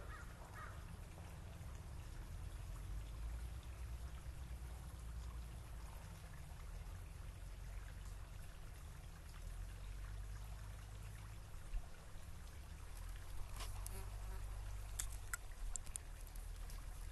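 A small stream trickling, over a steady low rumble, with a few sharp clicks late on.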